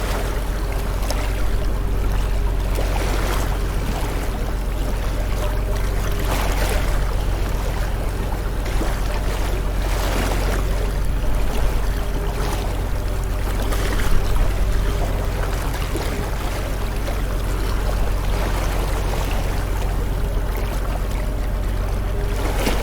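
Sea waves washing onto the shore in a continuous rush of surf, swelling every few seconds as a wave breaks, over a steady low rumble.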